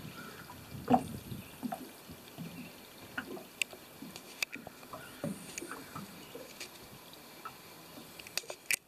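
Small waves lapping against the hull of a small aluminium fishing boat, with scattered light knocks and clicks; the loudest knock comes about a second in, and a few sharp ticks come near the end.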